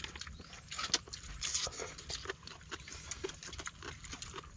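Irregular small clicks, crackles and rustling of people eating sea urchins by hand, the spiny shells knocking and scraping as the roe is scooped out, with chewing and mouth sounds.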